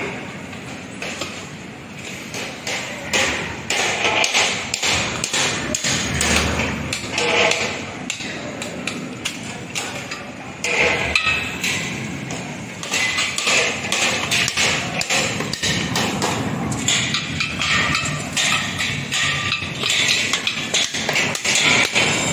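Construction site noise: repeated hammer knocks and metal clanks from work on steel shoring scaffolding and beam formwork.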